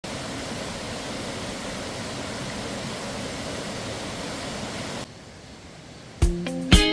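Steady rushing of a valley stream, cutting off suddenly about five seconds in. About a second later, guitar music with a beat starts.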